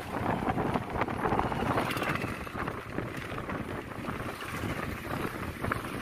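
Wind buffeting the microphone from a moving vehicle, with steady road noise underneath.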